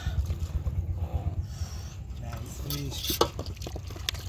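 Catfish being landed in an aluminium pot, knocking against the metal and splashing in shallow water, with a sharp knock about three seconds in. A steady low rumble runs underneath.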